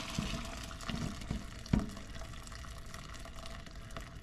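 Shrimp stock pouring from a pot into a plastic colander and splashing through it into the bowl below, a steady liquid stream. A few short knocks sound over the pour, the loudest a little under two seconds in.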